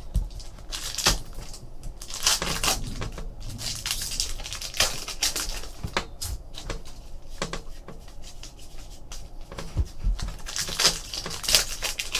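Trading card pack wrapper crinkling and cards being shuffled and slid against each other by hand: irregular, repeated rustles and papery scrapes.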